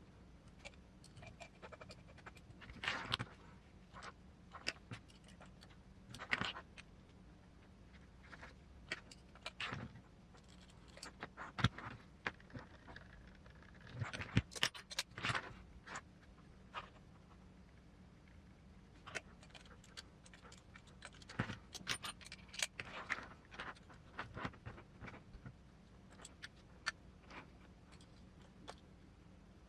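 Small metal parts and hand tools clicking and clinking in short, irregular bursts during hand assembly of an RC car transmission and motor mount.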